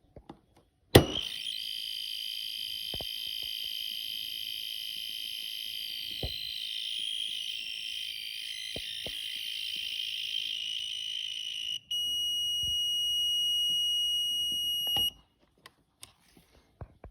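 Plug-in audible tone device, used to trace which breaker feeds a socket circuit, sounding a steady high-pitched electronic tone with a few faint clicks. The tone changes about twelve seconds in and cuts off suddenly about fifteen seconds in, the sign that the circuit feeding it has been switched off.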